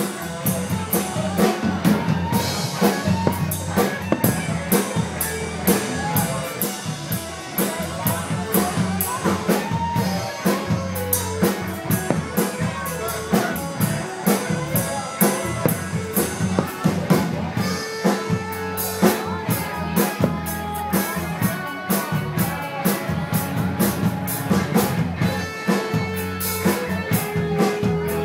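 Music with a steady drum beat playing throughout.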